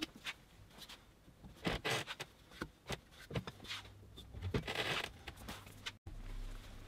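Light knocks and scrapes of pine boards being picked up and set down on a workbench, with two longer scraping sounds about two seconds in and near five seconds in.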